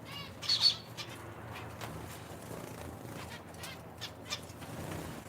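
Small cage birds, zebra finches and Java sparrows, giving short chirping calls: the loudest pair comes about half a second in and a few more near the end, over a low steady hum.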